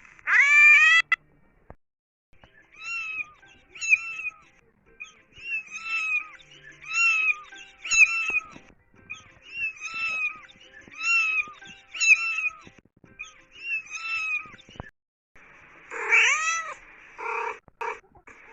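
Cats meowing. One loud meow opens, followed by a run of short, fainter, high-pitched meows about once a second. Louder, drawn-out meows over a background hiss come near the end.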